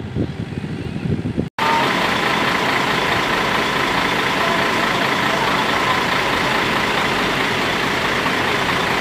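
A short muffled stretch cuts off sharply about a second and a half in, then a loud, steady engine running close by fills the rest.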